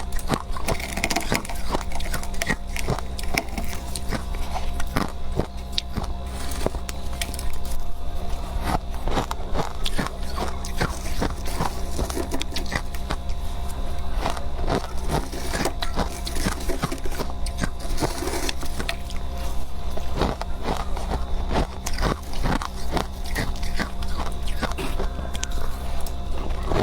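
Close-miked biting and chewing of freezer frost: dense, irregular crunches one after another, over a steady low hum.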